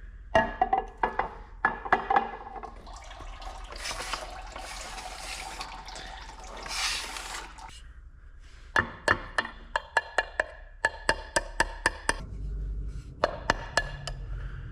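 Small hammer tapping a pin punch to drive a roll pin out of an automatic transmission valve body: sharp metallic taps that ring, a few at first, then a quick run of about three to four a second in the second half. A stretch of hissing, scraping noise comes between them.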